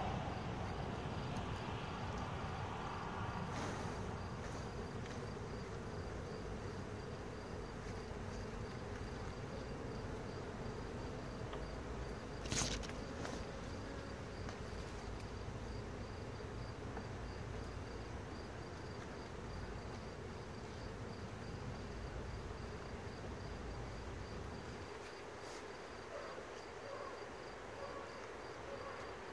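Honeybees buzzing steadily around an open hive box, with one short sharp click about twelve seconds in.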